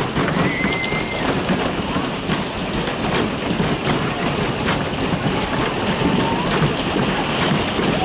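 Whip amusement ride car rolling and rattling along its track, with scattered clanks and a few brief squeals.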